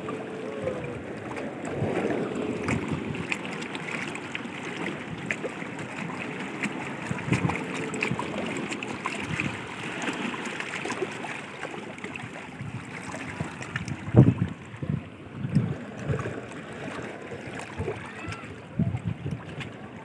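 Sea water washing and splashing among rocks on a rocky shore, with a few louder surges about two-thirds of the way through and near the end.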